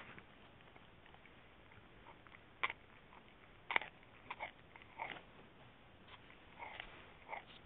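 Dachshund gnawing on a braided chew: soft, irregular crunches and clicks of teeth, a handful of them spread over the seconds, the loudest a little past the middle.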